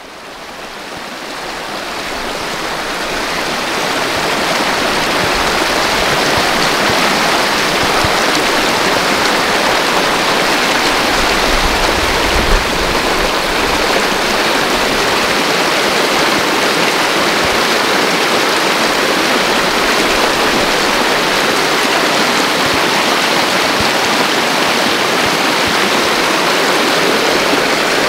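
Flood-swollen runoff stream rushing over rocks after heavy rain, a steady loud rush of water that swells in over the first few seconds.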